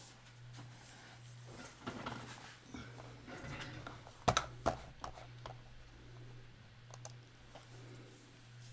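Scattered small clicks and taps of objects being handled on a work surface, with two sharper clicks close together about halfway through, over a steady low hum.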